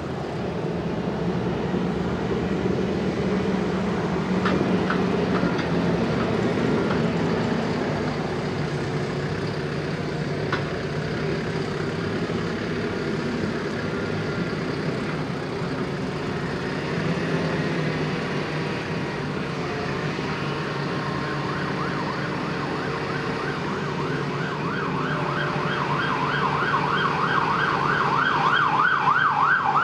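Diesel engine of a CAT TH336 telehandler running under load as the machine drives and lifts its boom, louder for a few seconds early on. In the last few seconds a fast, repeating warbling alarm tone joins in over the engine.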